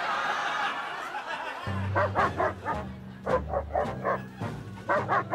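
A dog barking in three quick runs of several sharp barks, over bouncy background music that comes in about one and a half seconds in; a rushing noise fills the first second and a half.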